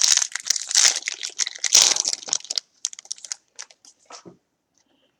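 Foil wrapper of a 2015 Topps Valor football card pack crinkling as it is torn open, a dense crackle for about two and a half seconds. After that come a few scattered rustles and clicks as the cards are handled.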